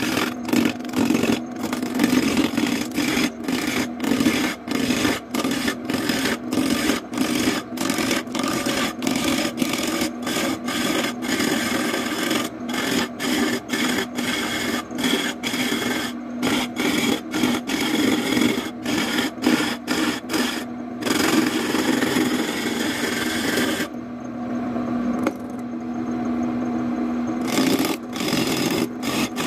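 Wood lathe turning a large wooden blank while a hand-held chisel scrapes and cuts it: a continuous rough shaving noise over the lathe's steady hum. Near the end the scraping drops away for a few seconds, leaving only the hum, then the cutting starts again.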